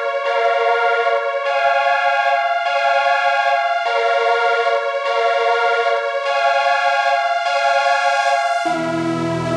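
Background score music: sustained synthesizer-like chords, changing about every second and a quarter, with deeper notes coming in near the end.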